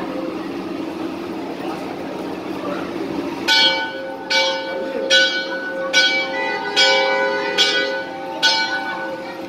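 Hanging temple bell rung by hand about seven times, one strike roughly every 0.8 s, each stroke ringing on, starting a few seconds in over the murmur of a crowd of devotees.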